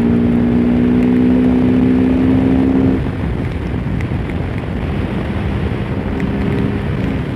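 Bajaj Pulsar RS200's single-cylinder four-stroke engine running at a steady cruise under wind and road noise, heard from the rider's seat. About three seconds in, the engine note drops away and the sound eases, leaving mostly wind and road noise.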